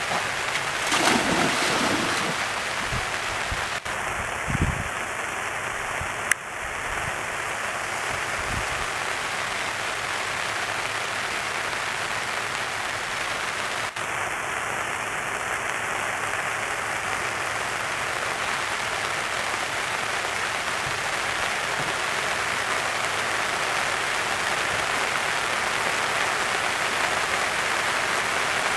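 Steady hiss of rain falling on a pond. About a second in there is a louder splash as a black Labrador retriever goes into the water.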